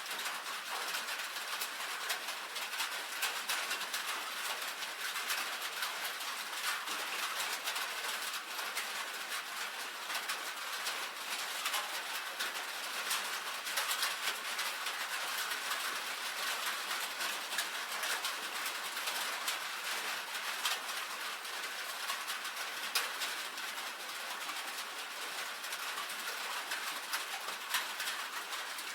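Steady rain on a tin roof: a dense patter of countless small drop ticks over an even hiss, with no let-up.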